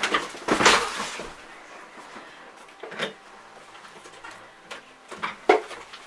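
Cardboard packaging being handled as a mini fridge is worked out of its box: a loud scraping rustle in the first second, then a few knocks and bumps.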